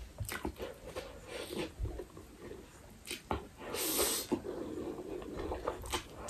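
Instant ramen noodles being slurped and chewed close to the microphone: wet chewing and mouth clicks, with a longer slurp about four seconds in.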